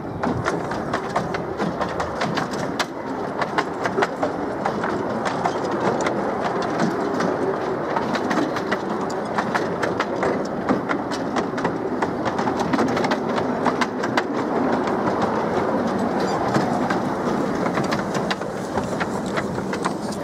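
Open passenger carriages of a 7¼-inch gauge miniature railway rolling past, their wheels clicking and clattering irregularly over the rail joints over a steady rumble.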